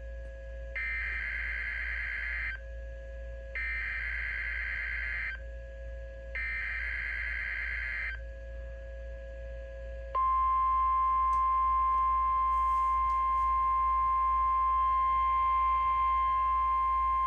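NOAA Weather Radio Required Weekly Test signal: three screeching, warbling bursts of SAME digital header data, each under two seconds and about a second apart. These are followed by the steady single-pitch 1050 Hz weather radio warning alarm tone, which starts about ten seconds in and holds.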